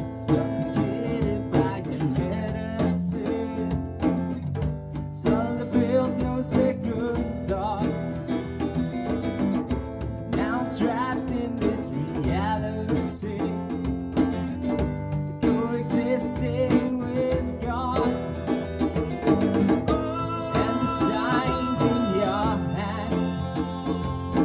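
Live acoustic band: strummed acoustic guitar, a djembe played by hand and a small plucked string instrument, with singing. Long held notes, likely from a violin, come in near the end.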